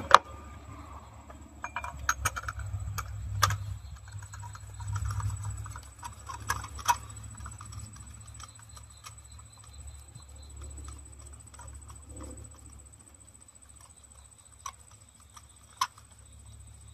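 Scattered sharp clicks and light taps of hands working on parts around a car engine's spark plug well. The loudest click comes right at the start, the clicks are thickest over the first seven seconds, and two lone clicks come near the end. A low steady hum runs underneath.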